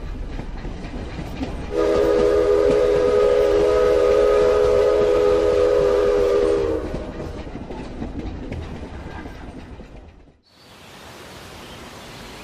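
Train sound effect: a train rumbling along, its horn sounding one long multi-note chord for about five seconds, then the rumble fading away.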